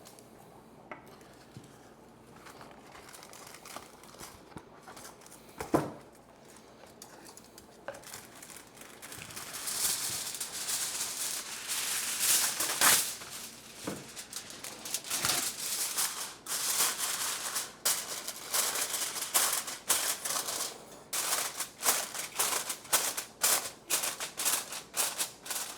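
Aluminium foil being crinkled and pressed over a pan, a busy crackling that starts about a third of the way in and grows into quick repeated crinkles.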